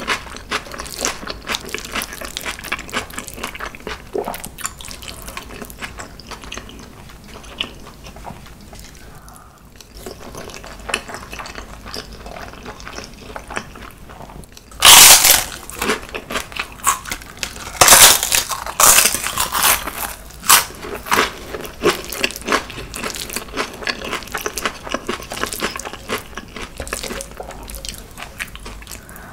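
Eating sounds at close range: a spoon clinking and scooping rice in a glass bowl with chewing. Then, about fifteen seconds in, loud crunching bites of a fried seaweed chip (gim-bugak), several crunches over a few seconds, followed by more chewing and spoon sounds.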